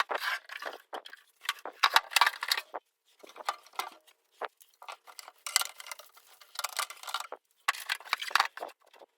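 Irregular clattering and clinking as the Milwaukee Sawzall and its steel case are handled, metal knocking and rattling in uneven clusters.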